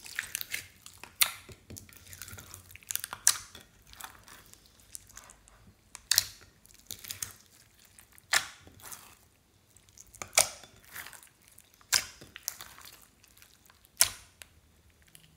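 Clear slime packed with small beads being pressed and squished by hand: soft wet squelching and crackling, broken by sharp wet pops about every one to two seconds.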